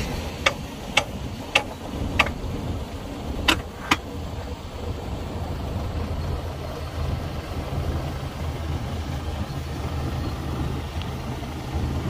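Heavy diesel earthmoving machinery running steadily with a low engine drone, with six sharp knocks in the first four seconds.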